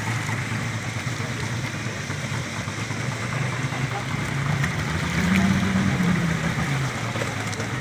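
Speedboat engine running steadily at low speed, with water washing along the hull; the engine note rises and grows louder for a couple of seconds a little past halfway, then settles back.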